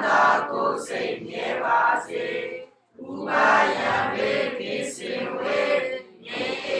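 Congregation of Buddhist lay followers chanting a devotional recitation in unison, many voices together, with a short break between phrases about three seconds in.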